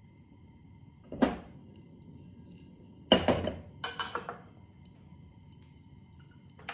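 Small glass ingredient bowls knocking as they are set down and moved on a tray: one knock about a second in, a louder one around three seconds in, and a short cluster of clinks just after, over a faint low hum.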